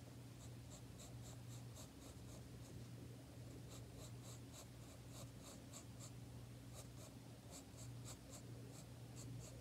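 Pencil lead scratching on sketchbook paper in faint, repeated short strokes as an ear is sketched in.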